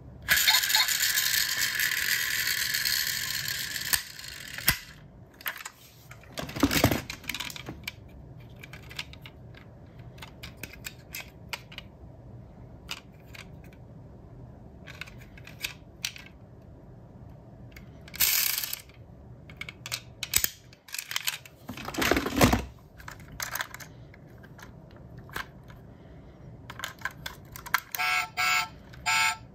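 Diecast model cars handled by hand: small clicks of opening doors and parts, with a couple of louder knocks. A loud hissing noise fills the first few seconds, and near the end a toy car's sound unit plays pulsed electronic tones.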